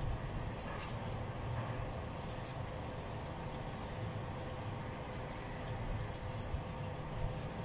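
Outdoor background sound: a steady low rumble under a faint hum, with brief high chirps every second or two.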